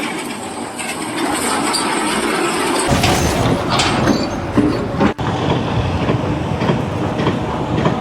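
Loud, steady rumbling of a heavy vehicle or machine, growing much deeper about three seconds in and staying so.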